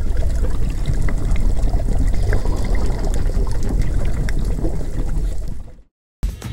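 Rumbling, watery sound effect with a deep steady hum beneath it, cutting off almost six seconds in. Music starts just before the end.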